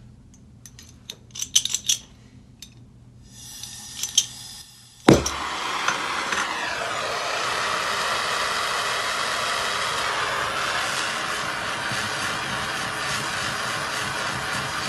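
A few light clinks, then a faint hiss of gas and a sharp pop as a jeweler's hand torch lights about five seconds in. The torch flame then runs with a steady hiss as it heats a copper piece for soldering.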